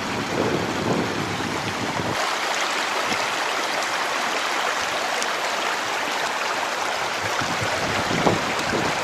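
Steady rushing of flowing water, a dense even hiss. The deeper rumble under it drops out about two seconds in.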